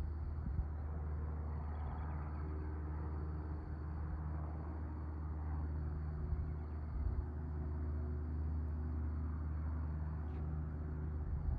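Distant Piper Cherokee PA-28 single-engine propeller plane in flight, a steady low hum. A few brief bumps come about six to seven seconds in and again near the end.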